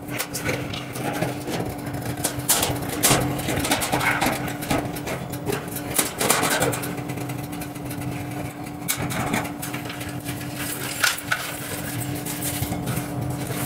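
Scattered clicks, taps and knocks as a 60x60 ceiling light panel is pushed up and worked loose from its suspended ceiling grid, over a steady low hum.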